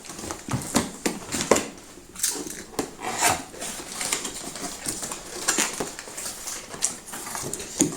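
Cardboard box and packaging being handled and opened during an unboxing: irregular rustles, clicks and knocks.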